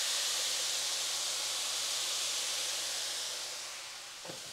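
Soy sauce sizzling in a hot frying pan of ground chicken and shredded cabbage, a steady hiss that fades away near the end.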